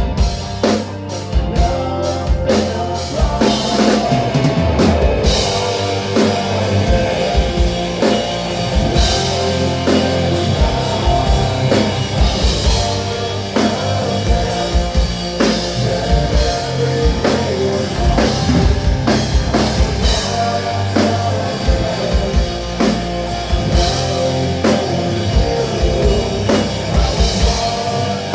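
Rock band playing: drum kit and guitar, with a steady, regular beat.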